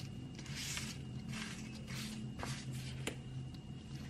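A metal pick scraping and picking caked dirt and dry grass off the rusted body of a diecast model car, in a run of short scratchy strokes, with a sharp tick about three seconds in.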